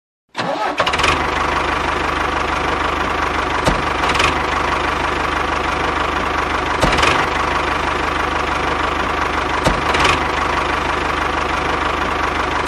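Tractor engine idling steadily, with fast even firing pulses and a few short clicks along the way. It cuts in abruptly just after the start.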